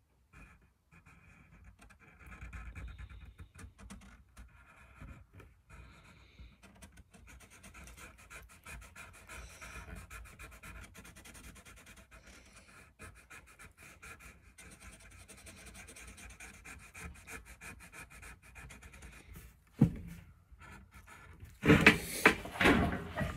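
A Sharpie marker rubbing and squeaking faintly along a hockey stick's shaft in short strokes as the printed lettering is traced over. Near the end come a few louder knocks.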